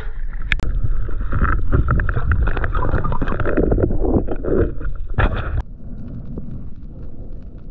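Water splashing and sloshing around a diver's camera at the sea surface as a spearfisher kicks off and dives, with a few sharp knocks. It turns suddenly muffled and quieter about five and a half seconds in, as the camera goes fully underwater.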